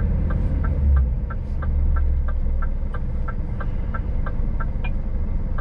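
Scania S500 truck engine running at low speed, heard from the cab as a steady low rumble while the tractor unit creeps forward. A light, even ticking runs over it, about three ticks a second.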